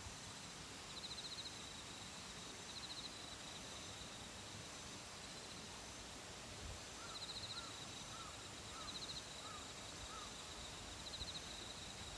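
Faint outdoor ambience: a steady hiss with a high, pulsing trill that repeats every second or two, and a run of six short chirps about evenly spaced in the middle.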